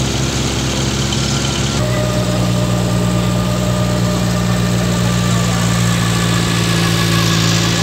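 Motorboat engine running with a steady drone, its pitch stepping up abruptly about two seconds in.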